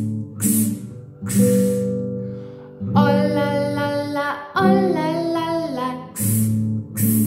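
A woman singing a children's song to strummed acoustic guitar chords, with the strums coming at uneven intervals between the sung phrases.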